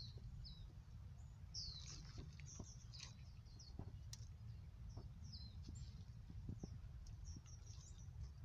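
Faint small-bird chirping: short high chirps come every half second or so, over a low steady rumble, with a few faint clicks among them.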